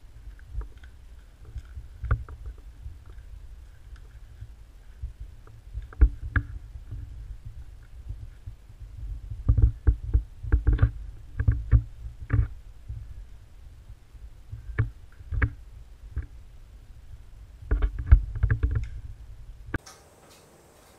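Low rumbling noise on the microphone with irregular knocks, taps and scuffs from corgi puppies moving against the wooden floor right by the camera. The knocks come in quick clusters, busiest about halfway through and again near the end. The rumble stops abruptly near the end.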